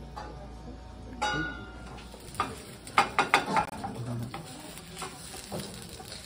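A metal clink with a brief ring about a second in. Then a wooden spatula and tongs clack and scrape in a frying pan as food sizzles, with a quick run of sharp clacks in the middle.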